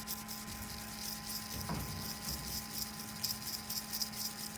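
Small steel wire brush scrubbing back and forth over corroded spots on a Victorinox pocketknife, a fast, hissy scratching in quick uneven strokes. There is a single light knock about a second and a half in.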